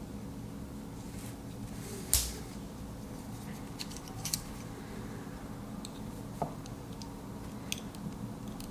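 A few sharp clicks and taps of small hard parts being handled: a screwdriver and its loose magnet. The loudest click comes about two seconds in, with fainter ones later, over a steady low hum.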